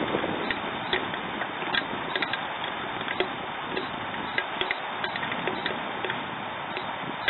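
Steady hiss of rain with irregular sharp ticks, a few a second, of raindrops striking a hard surface close by.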